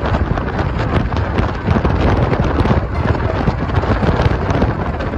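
Wind buffeting the microphone of a moving scooter: a loud, rough rush with a heavy low rumble.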